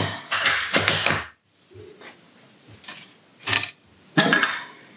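Handling noises on a tabletop: hand tools being set down and the robot vacuum's plastic laser-sensor (LDS) unit picked up. There is rubbing and rustling, with a few short clicks and knocks, the sharpest about three and a half seconds in.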